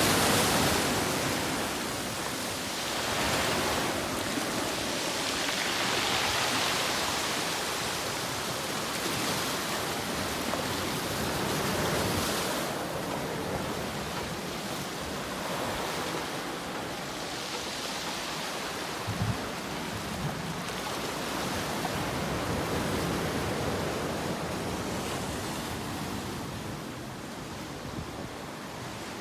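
Ocean waves breaking and washing on the shore, the surf rising and falling in slow swells every few seconds. A faint knock or two about two-thirds of the way through.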